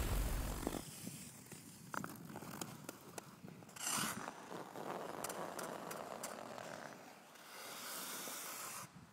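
Faint outro sound effects: a low rumble fading out within the first second, then scattered light clicks, with a short swish about four seconds in and a softer, longer one near the end.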